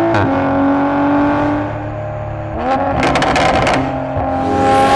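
Toyota GR Supra engine accelerating, its note stepping up and down in pitch with the gear changes. A short burst of crackles comes from the exhaust about three seconds in, after which the engine pulls again.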